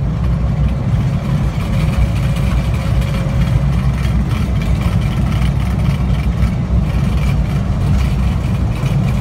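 Embraer KC-390's twin turbofan engines at takeoff power and the runway rumble of its takeoff roll, heard from inside the flight deck: a steady deep rumble with a fainter steady whine above it.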